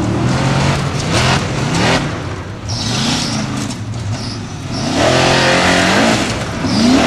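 Formula Offroad buggy's engine revving hard in repeated surges as it claws up a steep dirt hill, the pitch rising about a second in and again in a long climb from about five seconds to the end.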